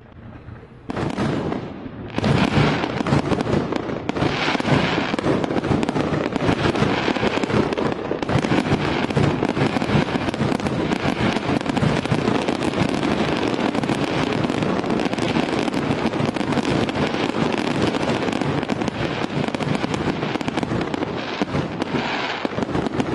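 Fireworks display: a dense, unbroken barrage of aerial shells bursting amid continuous crackling, beginning about a second in and growing louder about two seconds in.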